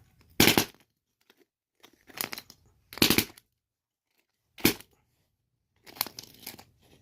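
A compressor-driven pneumatic tool hammering rock in five short bursts of rapid impacts, chipping the rock apart to free the quartz.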